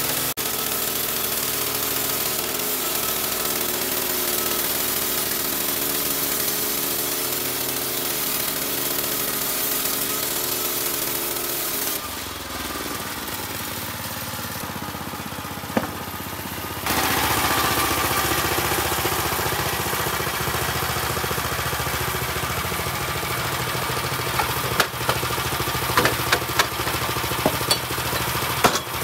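Engine-driven horizontal bandsaw mill running steadily as its band blade saws through a hard teak log. The sound dips for a few seconds about halfway and returns louder, and near the end come several sharp knocks as the sawn board is handled.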